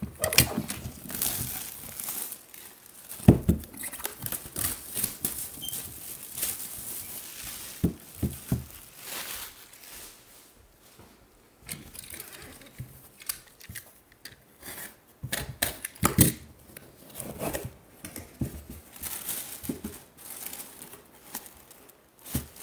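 Cardboard box being opened by hand: wrapping torn and crinkled, and paper packing inside rustling, with a few sharp knocks along the way.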